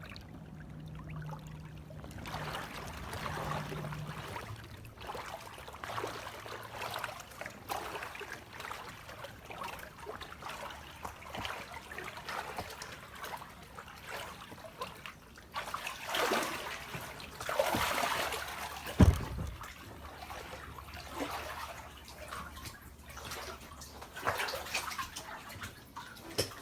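Floodwater about waist-deep sloshing and swirling around a person wading through it, in uneven surges with each stride, with one louder thump about two-thirds of the way through.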